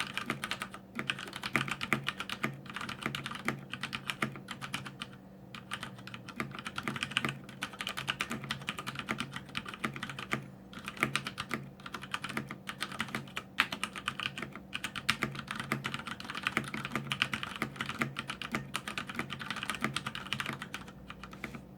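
Fast continuous typing on a CODE mechanical keyboard with Cherry MX Brown switches, a dense irregular clatter of key clicks at about 90 words per minute, with a few short pauses. A faint steady hum lies underneath.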